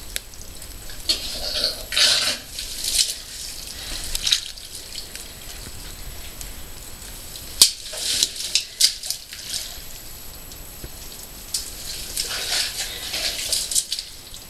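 Water dripping and splashing in a muddy cave passage: irregular drips and sharp splats, with short bursts of sloshing as a caver's boots move through wet mud, heaviest about two seconds in and again near the end.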